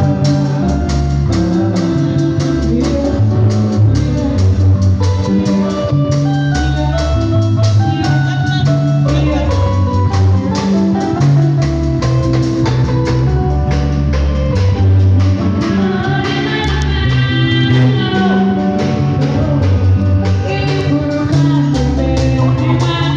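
Live band playing: electronic keyboard, bass guitar and a drum kit keep a steady groove, with a lead voice singing into a microphone at times.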